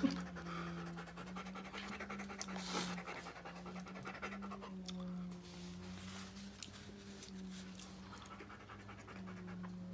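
Rapid, rhythmic panting over a steady low hum.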